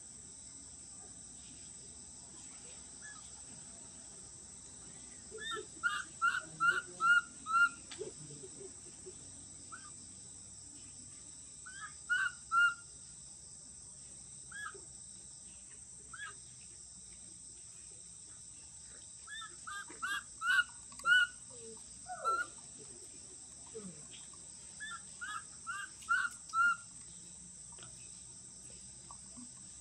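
Short high chirping calls in quick runs of four to six, repeated several times, over a steady high insect hum.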